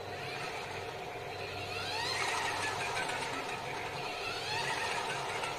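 Small portable washing machine starting its spin cycle: the motor hums and a whine rises in pitch as the spin basket speeds up, about two seconds in and again near the end.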